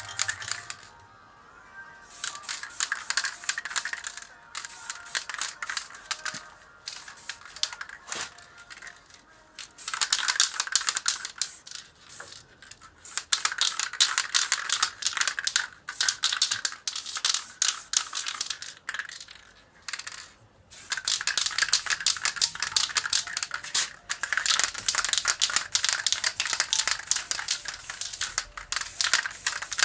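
Aerosol spray paint can in use: stretches of rapid rattling and hissing lasting a few seconds each, with short pauses between them, over background music.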